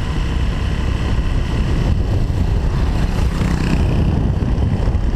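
Motorbike riding along a road: the small engine running under a steady rumble of wind and road noise on the microphone.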